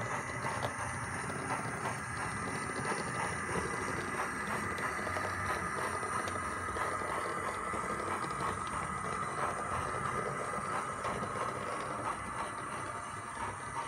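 Model tank locomotive running along the track under its own power: a steady whirr from its motor and gears, with a fast patter of small clicks from the wheels over the rail joints and pointwork.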